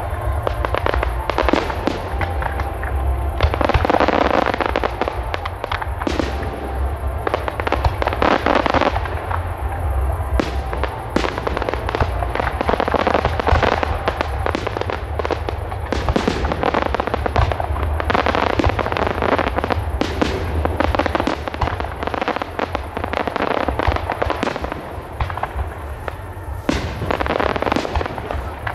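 Aerial fireworks display going off continuously, with many bangs and crackles of bursting shells in quick succession.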